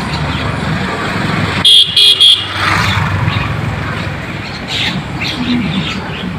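Steady road-traffic noise with three short, loud, high-pitched toots close together about two seconds in.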